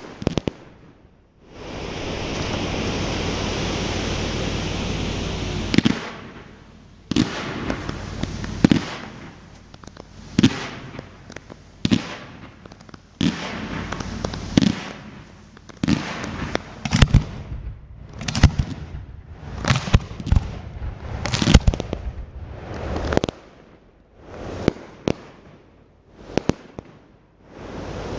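Fireworks going off: a sharp crack, a few seconds of steady rushing noise, then a long run of sharp bangs, about one a second and sometimes closer, each dying away quickly.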